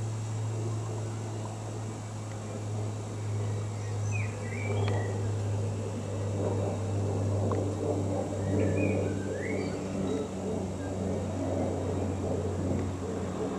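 Outdoor ambience: a steady low drone with short bird chirps about four to five seconds in and again around nine seconds in.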